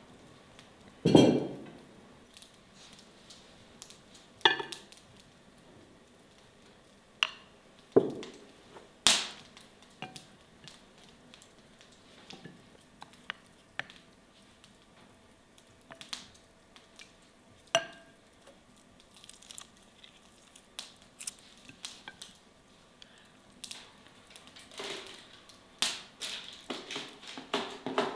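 Crockery and cutlery knocking and clinking on a wooden table: a few sharp knocks spread out with quiet between, the loudest about a second in as a platter is set down. Near the end a quick run of small clicks and rustling as smoked chicken legs are packed into a plastic box.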